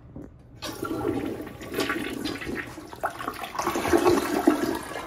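PROFLO toilet flushing: a rush of water starts about half a second in and swirls down the drain, carrying away the toilet paper floating in the bowl, then fades near the end.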